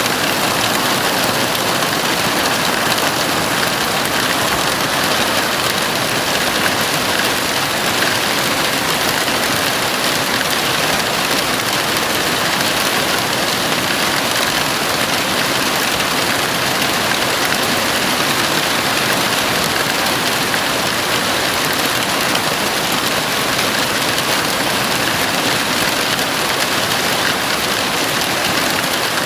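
Heavy rain falling steadily on a house roof, a dense, even hiss without letup.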